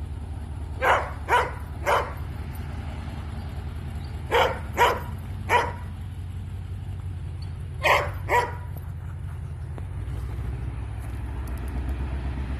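A dog barking in short groups, three barks, then three, then two, over the low steady hum of a running vehicle engine, which gets a little louder near the end.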